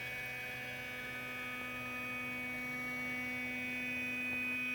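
Stepper motors of a homemade CNC pen plotter whining steadily as the machine drives the pen around an outline, with a lower tone dropping away about a second and a half in.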